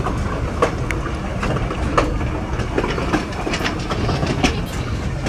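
PeruRail Andean Explorer train running on the rails: a steady low rumble with irregular clicks and knocks from the wheels and cars.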